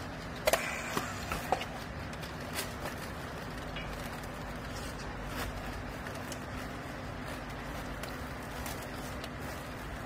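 Steady low hum with a few sharp plastic clicks and knocks about half a second to a second and a half in, as a handheld battery strapping tool is fitted onto polypropylene strap around a compressed clothing bale.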